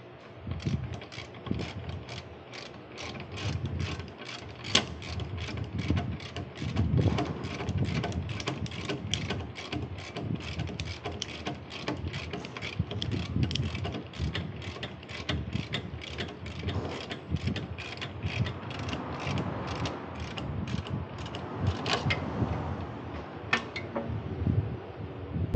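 Hand ratchet wrench being cranked, its pawl clicking in a steady rhythm of about two to three clicks a second, with dull knocks of the tool and parts underneath.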